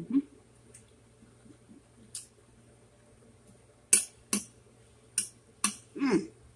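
Crisp crunches of raw salad (lettuce, apple, vegetables) being chewed close to the microphone, with clicks of a metal fork against a ceramic plate. The sharp crunches and clicks come thickest in the second half.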